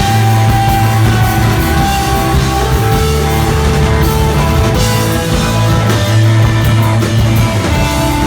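Three-piece desert rock band of electric guitar, bass guitar and drum kit playing an instrumental piece live: long held bass notes that change every second or two under ringing guitar lines, with cymbals throughout.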